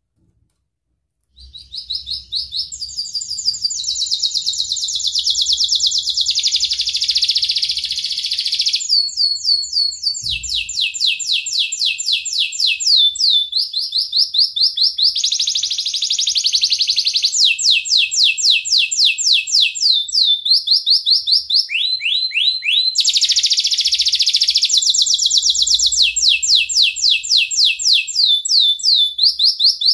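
Yellow domestic canary singing a long, almost unbroken song that starts about a second and a half in. It runs through trills of fast repeated notes, switching to a new phrase every second or two.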